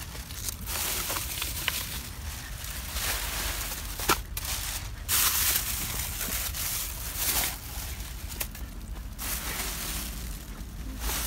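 Plastic rubbish bags crinkling and rustling as litter is picked up with long-handled litter tongs and dropped in, with a sharp click about four seconds in and a loud burst of crinkling just after.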